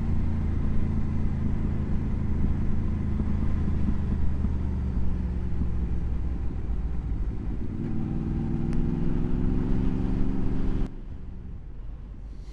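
Motorcycle engine running under way, its pitch rising steadily about eight seconds in as it accelerates. Shortly before the end the sound drops suddenly to a much quieter low rumble.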